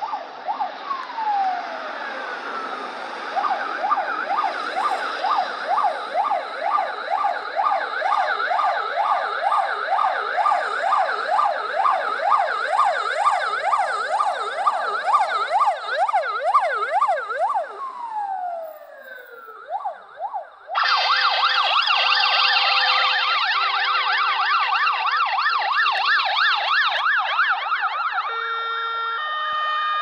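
Russian ambulance siren running a fast yelp, rising and falling about three times a second, after a few slow falling sweeps at the start; it winds down in a long falling glide after about eighteen seconds. A louder, shriller fast yelp then cuts in abruptly. Near the end a Czech ambulance siren takes over, stepping between steady tones.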